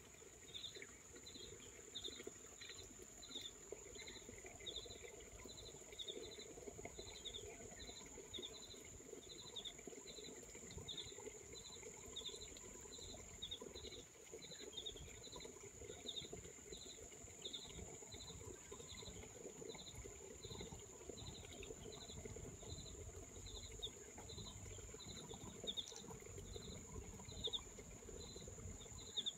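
Faint outdoor insect chorus: a steady high-pitched drone with a short chirp repeating about twice a second, and a couple of soft clicks near the end.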